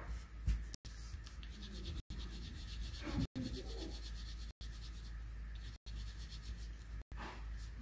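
Coloured pencil scratching and rubbing on paper in shading strokes, broken by short dropouts about every second and a quarter.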